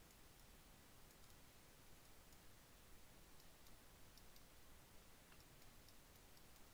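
Near silence: room tone with faint, irregular clicking from a computer mouse and keyboard as edits are made, the clicks scattered and a few coming close together in the middle.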